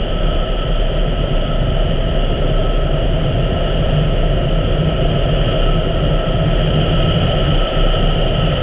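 2017 Honda Africa Twin's parallel-twin engine running at a steady cruise, mixed with wind and road noise, with no gear changes or revs.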